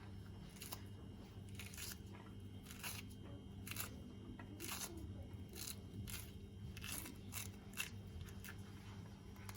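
An orange being peeled by hand: faint, irregular tearing and crackling of the peel, roughly one rip a second, over a low steady hum.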